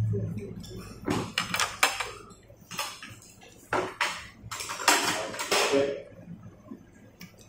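Chopsticks and tableware clinking and scraping against porcelain bowls and plates at a meal table: scattered short clicks, with a longer scrape around the middle.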